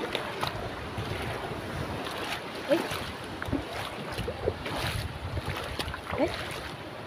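Wind buffeting the microphone over the wash of shallow sea water and surf, with a few brief faint rising squeaks.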